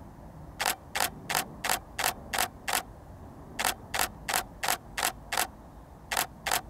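Canon 80D DSLR shutter firing in continuous bursts at about three frames a second: seven shots, a short pause, six more, and another burst starting near the end.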